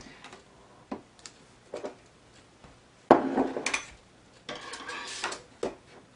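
Hands setting painting supplies down and arranging them on a tabletop. There are a few light knocks early, then two longer stretches of handling noise about three and four and a half seconds in, as a container of paintbrushes is put in place.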